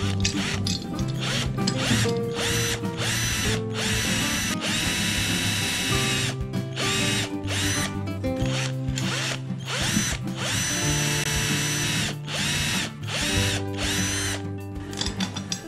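Cordless drill boring holes into clamped wood in several bursts, two of them long.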